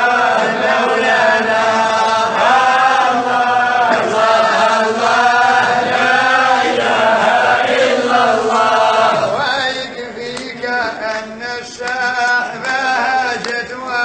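Islamic devotional chant sung solo, with long held, wavering notes. About nine and a half seconds in it turns to shorter, quicker syllables and gets a little quieter.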